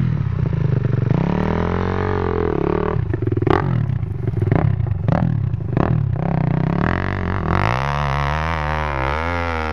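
Off-road dirt bike engine revving up and down under load on a rough, steep climb, with several sharp throttle blips midway. Near the end the engine settles into a steadier, wavering drone as it pulls up the slope.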